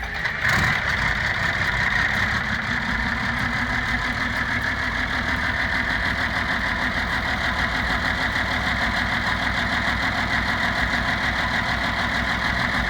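Isuzu JCR500 bus's diesel engine running steadily after its top-end rebuild for a blown head gasket. It comes in suddenly about half a second in.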